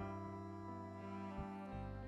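Instrumental background music with held notes that change every second or so.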